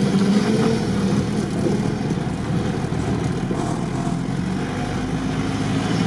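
Engine of a modified UAZ off-road vehicle running steadily as it drives slowly along, a continuous low hum over road noise.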